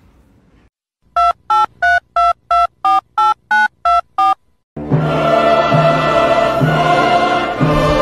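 About ten telephone keypad dialing tones, short steady beeps at roughly three a second, each with its own pitch, as if a number is being dialed. Then loud music comes in about halfway through.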